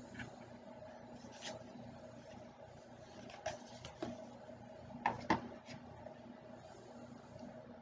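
Faint handling noises of a cardboard product box being turned and rubbed in the hands, with a few light taps and knocks, the loudest a pair about five seconds in, over a steady low hum.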